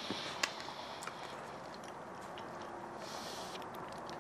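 A man chewing a bite of smoked brisket, with a few soft clicks in the first second and a half.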